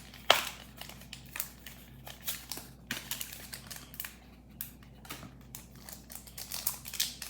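Pokémon booster-pack wrapper and cards being handled: irregular crinkling and sharp clicks, with a louder click about a third of a second in.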